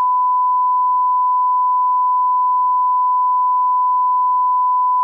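A single loud, pure, unwavering beep held at one pitch: a line-up test tone of the kind placed at the head of a video master.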